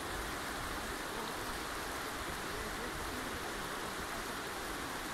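Neelam River rushing over rocks and a gravel bar: a steady rushing of running water.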